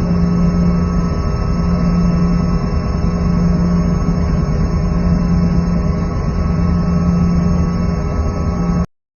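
A loud, steady engine drone with a strong low hum that cuts off suddenly near the end.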